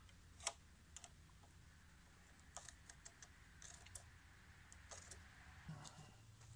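Faint, scattered light clicks and taps from a plastic speed square and pencil against a pressure-treated timber beam as a cut line is marked. The sharpest click comes about half a second in.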